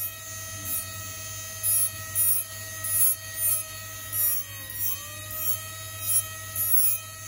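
Jeweller's micromotor rotary handpiece running with a steady high whine while its bur cuts into gold chain links in short, repeated scratchy bursts. The motor's pitch dips briefly and recovers about five seconds in, as the bur bites under load.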